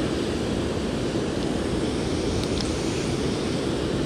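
Steady rush of water pouring over a weir, with a few faint ticks.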